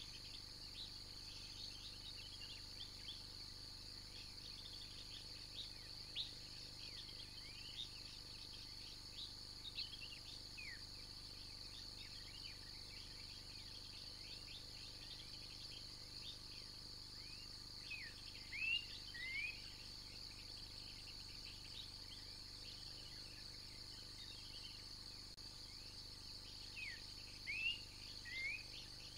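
Steady high-pitched insect chorus with many short bird chirps over it; a few louder bird calls come about two-thirds of the way in and again near the end.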